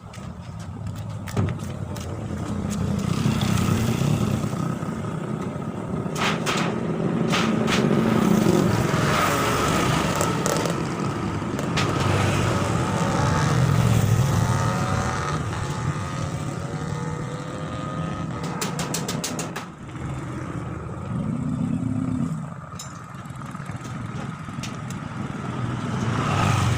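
A motor running, its speed and loudness rising and falling, with a few sharp clicks.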